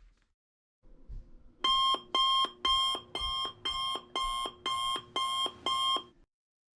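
Electronic alarm clock beeping: nine short, identical beeps, about two a second, then it stops.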